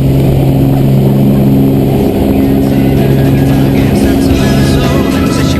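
Steady drone of a light aircraft's engine and propeller heard inside the cabin during the climb to jump altitude. Near the end, music with a beat fades in over it.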